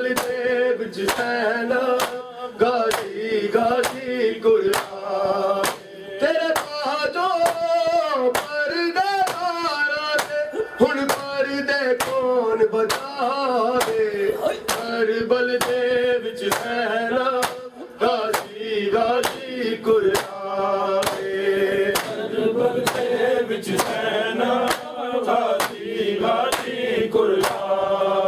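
Men chanting a noha (mourning lament) together, over a steady beat of open-handed slaps on bare chests (matam), roughly one every two-thirds of a second.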